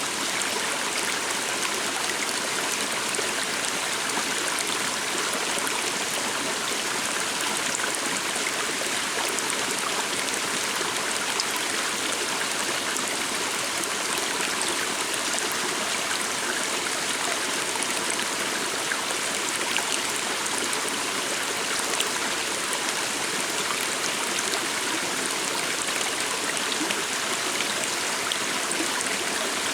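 Calm stream flowing steadily: an even, continuous rush of running water with small splashes.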